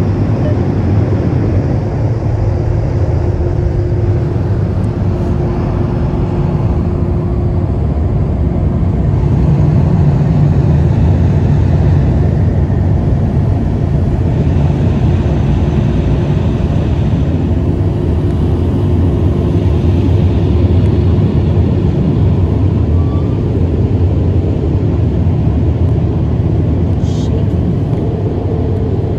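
Onboard blower dryers of a Ryko Monarch II touch-free rollover car wash running: a loud, steady rush of air over a deep rumble, heard from inside the car, swelling slightly in the middle stretch.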